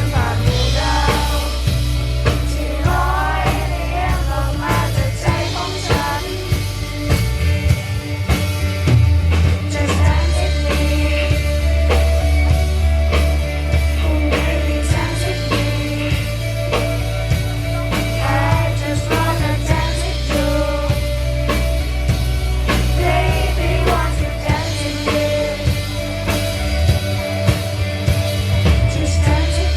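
A band playing a song live with a singer, over a steady beat and deep bass notes that change every few seconds.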